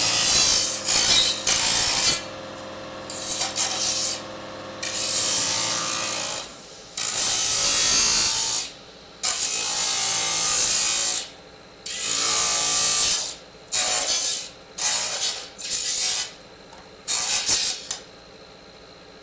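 Disk saw cutting aluminium in repeated short bursts: about nine harsh, bright cuts of one to two seconds each with brief pauses between. The cutting stops near the end, leaving a low steady background.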